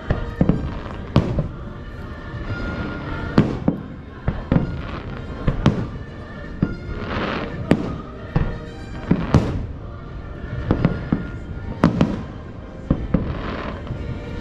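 Aerial firework shells bursting in a rapid series of booms, about one to two a second, with music playing underneath.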